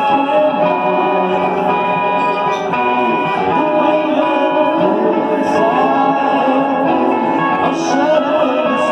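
Live rock band playing: keyboard chords and guitar, with a man singing into a microphone.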